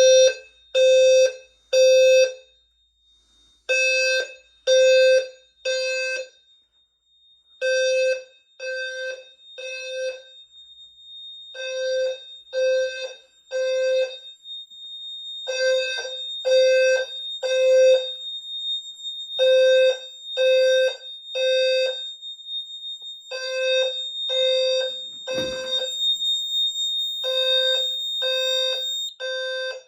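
Fire alarm horns sounding the temporal-three evacuation pattern: three half-second blasts a second apart, a pause, then again, over and over. This is the system's alarm signal after a smoke detector was set off. A steady high-pitched tone sounds faintly underneath from about a quarter of the way in, and there is a single knock about 25 seconds in.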